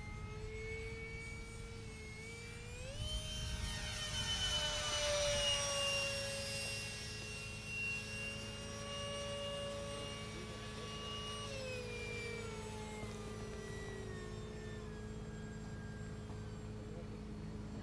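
Electric ducted fan of a small foam RC jet whining in flight, a steady high-pitched whine with several tones. The pitch jumps up about three seconds in, holds, then falls away about twelve seconds in.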